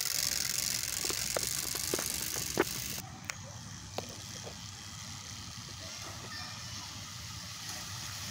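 Clatter of a bicycle rigged with a homemade spoke noisemaker to sound like a motorcycle, as it rides away. A few sharp clicks come in the first three seconds, and then the sound drops quieter.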